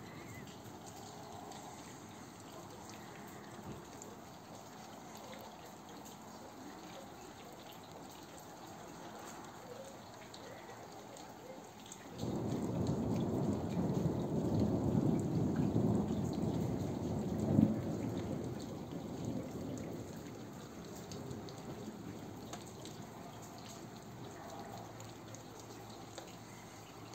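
Light rain falls steadily. About twelve seconds in, a long roll of thunder starts abruptly, rumbles for about eight seconds with one sharper clap at its loudest, then fades back under the rain.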